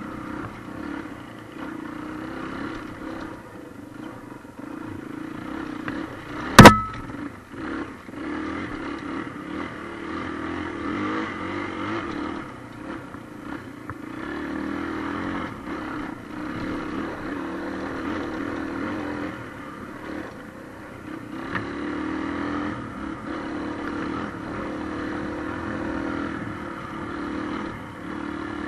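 A motorcycle engine runs steadily while riding along a dirt track, its pitch wavering with the throttle. A single sharp, loud knock comes about six and a half seconds in.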